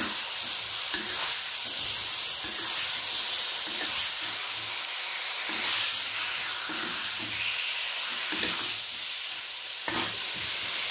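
Potato pieces and ground spinach paste frying in oil in a metal kadai, with a steady sizzling hiss. A steel spatula stirs and scrapes through them in repeated strokes.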